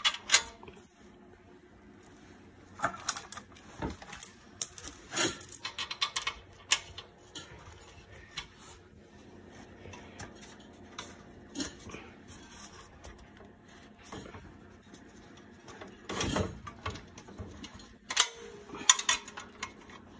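Steel motor mounting plate and engine being shifted and lined up on a go-kart's steel frame: irregular metal clanks, knocks and scrapes, coming in bunches a few seconds apart, the busiest about four to seven seconds in and again near the end.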